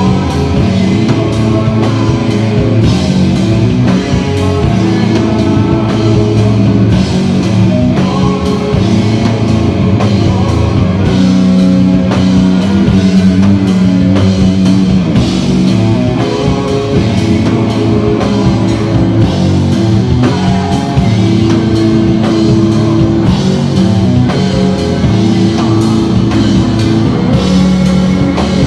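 Rock band playing live: guitars over bass notes and a drum kit keeping a steady beat.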